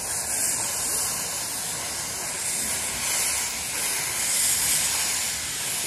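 Steady hiss of steam venting from a 15-inch gauge steam locomotive, swelling a little now and then.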